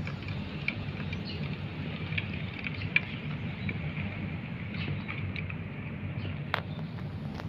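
Chickens pecking at feed, their beaks tapping irregularly on a metal bowl and on paving stones, with a few sharper taps, over a low steady hum.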